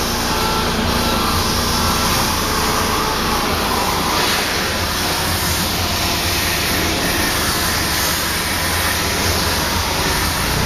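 Steady mechanical running of a forklift and the vacuum lifter mounted on it while the lifter's suction pads hold a metal plate and raise it off the floor.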